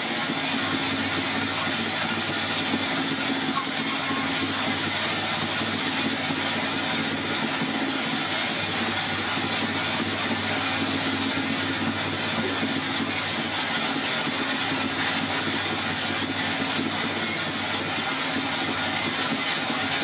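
Vertical band saw running steadily while logs are pushed through the blade and sawn into slabs: a continuous mechanical noise with a low hum, and a high hiss that comes and goes several times.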